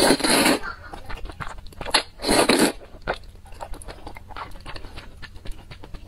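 A person slurping noodles from spicy soup, two loud slurps, one right at the start and one about two seconds in, then chewing with many small wet clicks.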